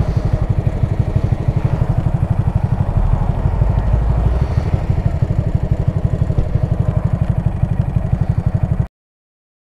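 Small single-cylinder Honda Grom motorcycle engine idling with a rapid, even putter; the sound cuts off suddenly near the end.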